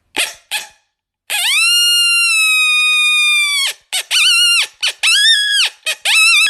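Coyote call: one long howl that rises, holds and sags slightly at the end, followed by a quick run of short yips that rise and fall.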